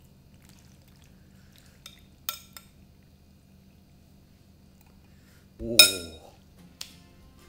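A metal spoon clinks and scrapes against a ceramic bowl as tteokbokki in sauce is tipped out onto a plate of pasta: a few light clinks about two seconds in. Near six seconds comes the loudest moment, a sharp clatter with a brief falling voice-like sound under it, then one more light click.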